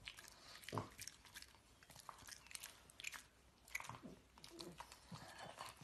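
Faint mouth sounds from a pug: scattered soft clicks and smacks as it licks and works its jaws.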